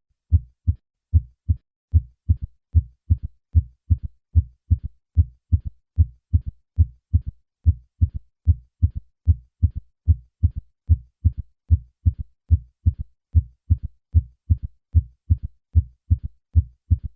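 Heart sounds heard through a stethoscope: low thumps repeating in a steady galloping rhythm, with a third heart sound following the second in early diastole. This is a ventricular gallop, which in adults over 40 points to left ventricular failure.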